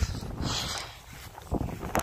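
Footsteps and rustling through thick grass and weeds, with wind buffeting the microphone in low thumps. A louder brushing rustle comes about half a second in, and more thumps come near the end.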